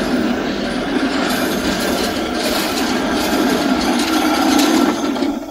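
Rollers of a long roller slide rattling steadily as a person rides down over them, growing louder as the rider nears the bottom.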